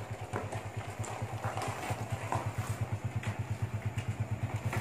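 Motorcycle engine running at low speed with a quick, even low beat as the bike rolls slowly closer, growing louder.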